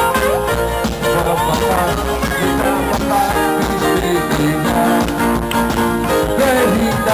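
Loud music playing without a break.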